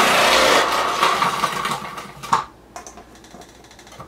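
Food processor motor running on pulse, its grating disc shredding raw potatoes pushed down the feed chute. It stops with a click a little over two seconds in, leaving a few faint clicks as the next potato is loaded into the chute.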